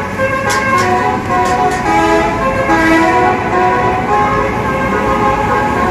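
A bus's multi-trumpet 'telolet' air horn playing a quick melody of stepped notes, with traffic running underneath.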